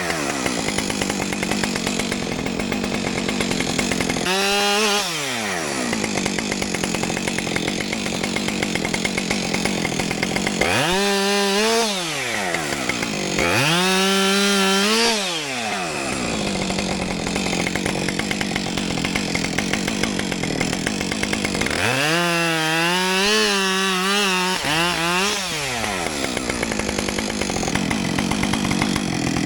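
Two-stroke chainsaw idling, then revved to full speed four times and dropping back to idle between, while cutting up downed trees. The longest run, near the end, wavers in pitch as the chain works through the wood.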